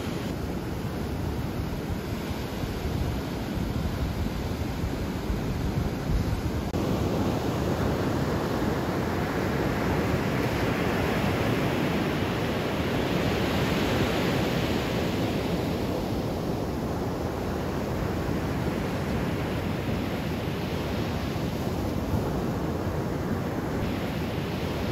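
Ocean surf breaking and washing up a sandy shore: a steady rushing that swells up about a third of the way in and eases off again after the middle.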